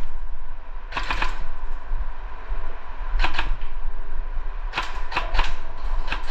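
Airsoft guns firing short bursts of rapid clicking shots: one burst about a second in, another near three seconds and a longer run of shots around five seconds, over a steady low rumble.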